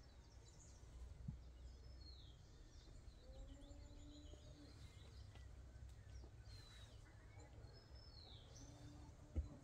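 Near silence outdoors with faint birdsong: scattered short, high chirps and down-sliding notes from small birds over a low background rumble. A single soft knock comes just before the end.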